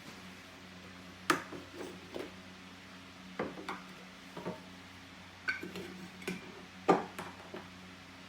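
Hard kitchen items clinking and knocking together as they are handled, about nine times over several seconds, some with a short ring, over a steady low hum.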